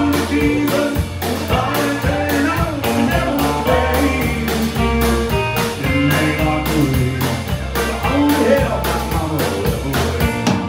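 Live country band playing, with bowed fiddle and strummed acoustic guitar over bass and a steady drum beat, and singing.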